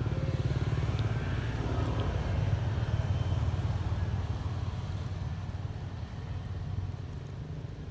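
A motor vehicle engine running steadily nearby with a low, pulsing rumble, growing a little fainter in the second half.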